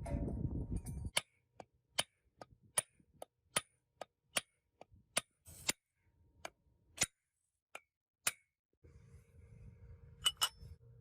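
A run of sharp, separate metallic clicks, about two to three a second, after a brief rumbling noise at the start; near the end a low steady hum sets in, with two more sharp clicks.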